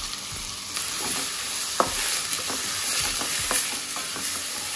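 Chopped onions sizzling in hot butter and oil in a stainless steel pan, stirred with a wooden spatula that knocks and scrapes against the pan several times. The sizzle grows a little louder about a second in.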